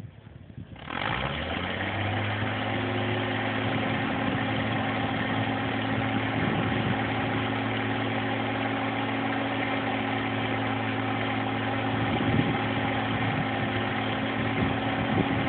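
Mobile crane's diesel engine throttling up about a second in, its pitch rising, then running steadily at raised speed to power the crane, with a few brief knocks over it.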